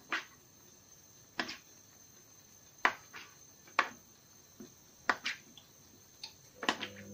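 Knife striking a cutting board in sharp, separate clicks, about eight of them a second or so apart, as food is cut in half.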